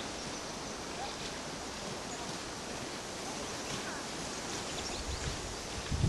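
Steady hiss of wind in the woodland, with low rumbling of wind on the microphone starting near the end.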